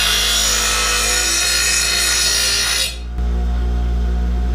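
Bench grinder sharpening a dull steel riding-mower blade: a loud grinding hiss of the blade on the wheel over a steady motor hum. About three seconds in the blade comes off and the grinding stops suddenly, leaving only the grinder motor humming.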